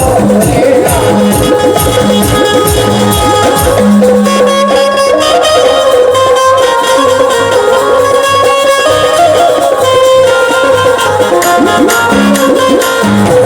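Instrumental interlude of a Haryanvi folk song: a steady drum rhythm with sustained melody-instrument tones and no singing.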